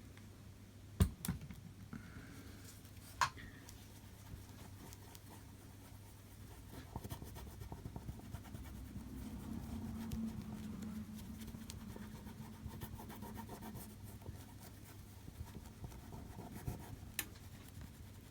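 Faint scratching and rubbing as softened glue residue is worked off an iPhone LCD panel with a tool and cleaning liquid. Several sharp clicks of tools being set down or tapped: a pair near the start, one a few seconds in, and one near the end.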